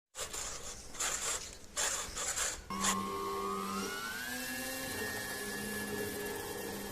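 A small electric motor whine, likely the RC plane's brushless motor. It starts with uneven rushing bursts, then about three seconds in settles into a steady whine that rises in pitch for a second or so and then holds.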